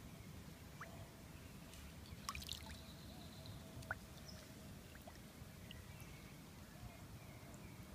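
Faint water sloshing and trickling as a fish is held in shallow water by a lip grip. A few sharp clicks come about two seconds in, and the loudest comes about four seconds in.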